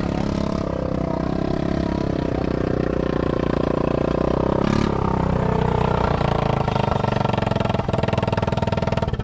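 ATV (quad bike) engine running close by at idle, its speed rising and falling a little, with one short click about halfway through.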